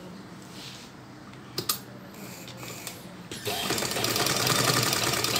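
A DIMAX domestic sewing machine starts stitching about three and a half seconds in, a fast, even clatter of the needle mechanism, as a test seam is run after the bobbin thread has been rethreaded. Before that there are a couple of sharp clicks as the cloth is set under the presser foot.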